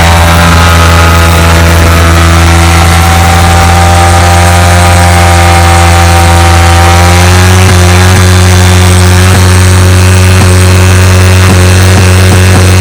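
Motorcycle engine held at high revs with the rear tyre spinning in a burnout, wearing down the old tyre. The pitch holds steady, with irregular crackles in the last few seconds.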